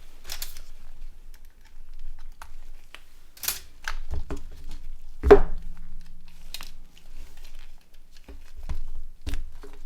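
Small plastic clicks and scrapes from handling a Nokia N80 slider phone as its battery cover and battery are taken off. The sharpest click comes about five seconds in.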